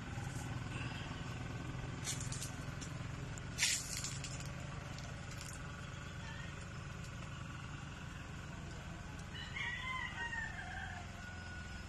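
A rooster crows once near the end, a falling call lasting about two seconds, over a steady low background rumble. Two short sharp clicks or rustles come about two and three and a half seconds in, the second the loudest sound.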